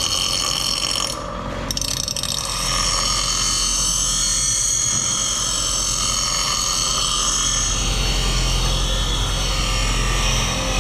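Bench grinder running with a small metal plate held against its wheel, a steady grinding noise over the motor's whine, easing briefly about a second in.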